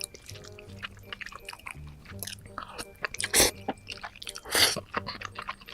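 Close-miked eating sounds: wet chewing and smacking clicks, with two louder wet bursts about halfway through, a second apart.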